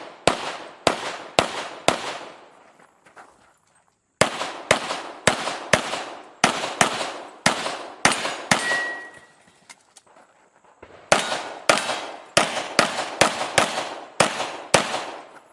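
Rock Island Armory Pro Ultra Match pistol in .40 S&W firing fast strings of shots, about two a second, each with a short ringing tail. The shooting comes in three runs broken by two pauses of about two seconds.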